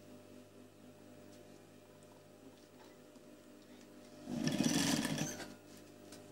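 Industrial sewing machine running a short burst of stitching, about a second long, starting about four seconds in, over a steady low hum.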